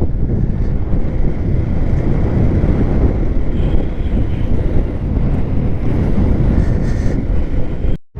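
Wind buffeting the microphone of a moving motorcycle: a loud, dense low rumble with no clear engine note. It cuts out for a moment near the end.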